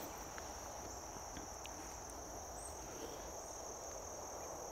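Faint, steady high-pitched drone of insects, with a few short high chirps now and then over a low rumble.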